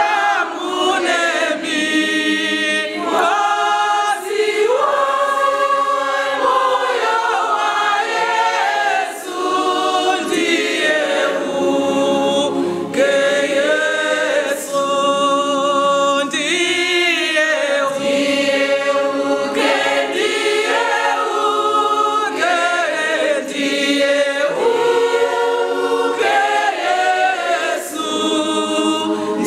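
A women's church choir sings a Shona hymn to the Sacred Heart of Jesus, several voices in harmony. The singing is loud and goes on without a break.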